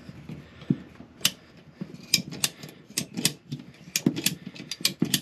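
Ratcheting PVC pipe cutter clicking as it is squeezed through a 3/4-inch PVC P-trap. Sharp clicks, mostly in pairs about a second apart.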